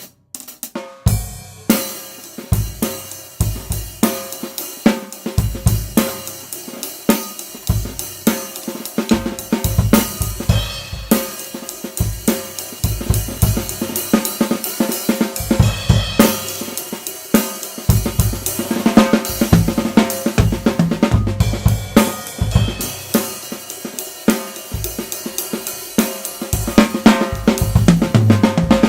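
Tama Swingstar drum kit with Meinl cymbals played with sticks: bass drum, snare, hi-hat and cymbals in a continuous groove that gets busier from about the middle on, picked up on a single Blue Yeti microphone.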